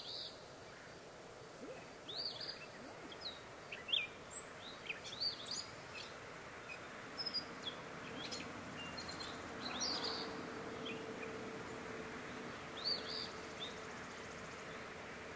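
Songbirds chirping and calling in short high notes every second or so, over steady outdoor background noise. A faint steady hum comes in about halfway through.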